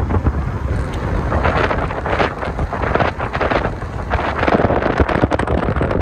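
Wind buffeting the microphone in irregular gusts, over the low rumble of a moving vehicle on the road.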